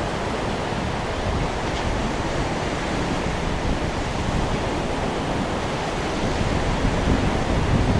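Storm wind blowing over the microphone together with rough sea surf, a steady rushing noise with low rumbling gusts that grow a little stronger near the end.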